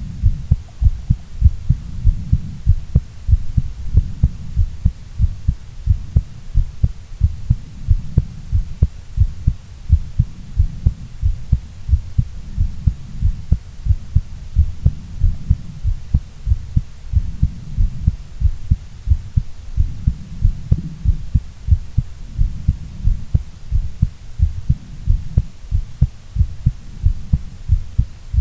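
A woman's heartbeat: low thumps in close lub-dub pairs, beating at a steady, even pace over a low rumble.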